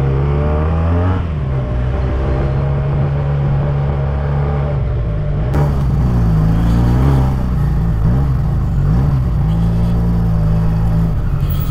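Benelli 302S motorcycle's parallel-twin engine running as the bike is ridden, holding steady for stretches, dropping in pitch about a second in and rising and falling again around the middle with throttle and gear changes.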